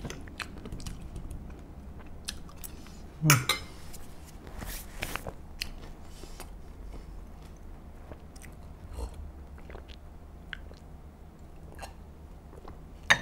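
A person chewing juicy watermelon, with soft crunches and wet mouth clicks and a louder mouth sound about three seconds in.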